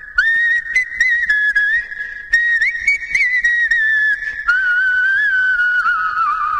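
A whistled melody in a music track: a single high, clear tone held and gliding between notes in short phrases, with a few light clicks where the phrases break.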